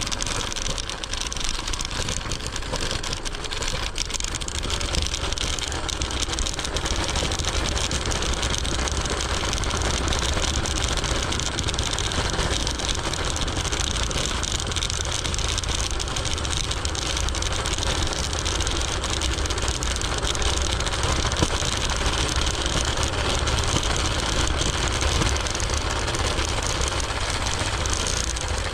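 Steady ride noise from a Segway Ninebot ES4 electric scooter in motion: a low wind rumble on the microphone with tyre and road noise, over the engine sound of street traffic. The rumble grows a little stronger after several seconds.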